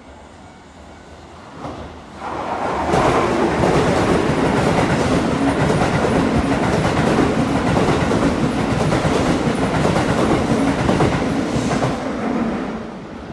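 Keihan electric express train passing through the station at speed without stopping: its rumble and wheel clatter rise sharply about two seconds in, hold loud, and die away near the end.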